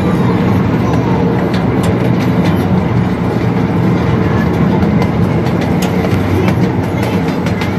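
Miniature ride-on train running along its track, heard from aboard: a steady rumble of wheels on rail with scattered short clicks.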